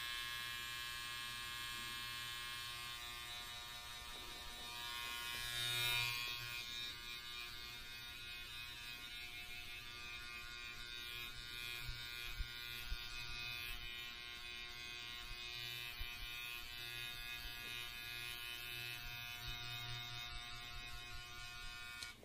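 Electric hair clippers running steadily close up, with a brief swell in loudness about six seconds in, then cutting off at the end.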